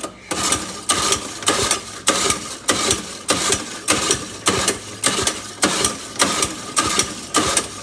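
Old three-wheeler engine being cranked over and over, about two strokes a second, for a compression check. The gauge reads only about 35, and the owner thinks the engine has blown up.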